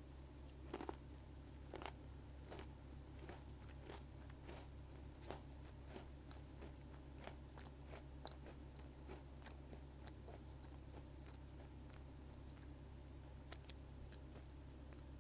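Close-miked chewing of almond Pocky: a run of crisp crunches as the biscuit stick and almond pieces are bitten and chewed, stronger in the first few seconds, then smaller, fainter crackles.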